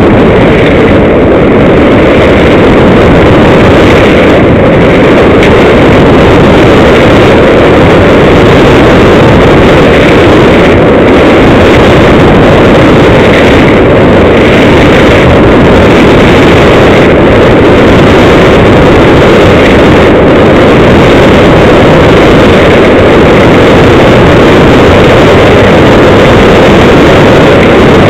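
Loud, steady wind rumble buffeting the microphone of a body-worn camera on a skier going fast down a giant slalom course, mixed with the hiss of skis on snow.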